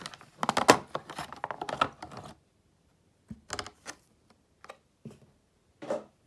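Clear rigid plastic packaging of a model aircraft crate being handled: a quick run of crackling and clicking for about two seconds, then a few separate light taps as the plastic tray is set down on a table.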